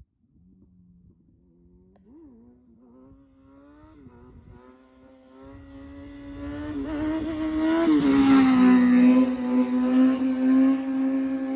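Sport motorcycle engine approaching down a straight, growing steadily louder, its note jumping briefly about two and four seconds in. It passes about eight seconds in with a drop in pitch, then holds a steady note.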